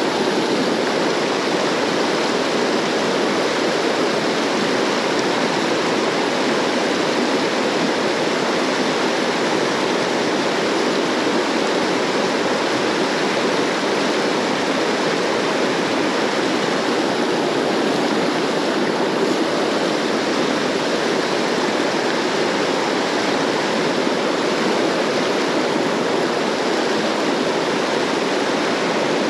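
River Ayr water rushing steadily, an even unbroken flow noise, with the river running off after a big spate.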